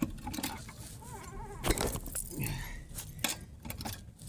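Metal clinks and knocks of hand tools and fasteners during reassembly of a car's wheel hub, with the sharpest knock a little before the middle.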